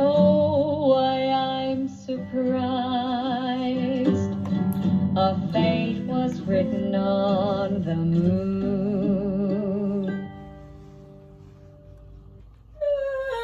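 A woman singing a slow line with vibrato over acoustic guitar, fading out about ten seconds in. A quieter stretch follows, then another voice starts loudly just before the end.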